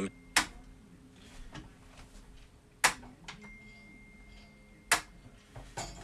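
Three sharp clicks about two seconds apart, with soft handling knocks between them: hands working the plastic case and battery compartment of an alarm unit.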